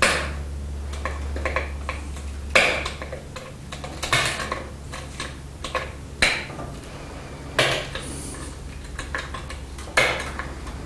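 Glass being pressure-flaked on a small wooden anvil: sharp, ringing clicks as small flakes snap off under the pressure flaker, about six loud ones a second or two apart with fainter ticks and scraping between. A steady low hum runs underneath.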